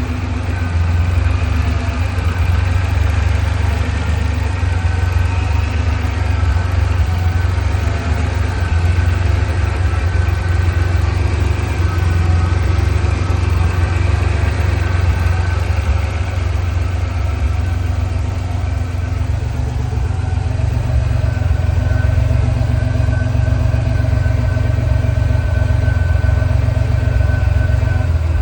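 Pontiac Fiero engine idling steadily, running smoothly now that it has been got going. The idle note shifts slightly higher about two-thirds of the way through.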